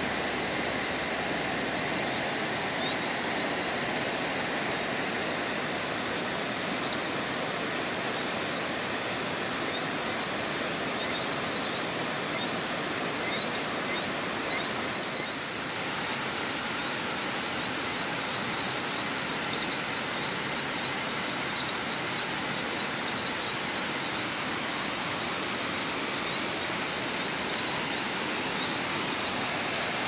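Volcanic hot-spring stream rushing and splashing over rocks in a steady, even rush. Faint high chirps come in from about ten seconds in, and there is a single sharp click about halfway through.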